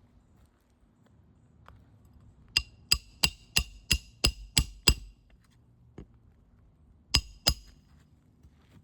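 A hammer driving roofing nails through asphalt shingles: a quick run of eight ringing metal-on-metal strikes, about three a second, then a single softer knock and two more strikes close together near the end.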